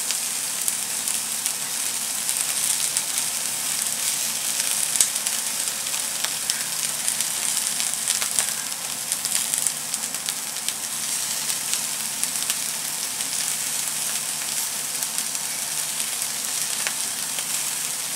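Sweet shrimp heads sizzling as they roast crisp on aluminium foil in a hot pan: a steady high hiss with scattered sharp crackles.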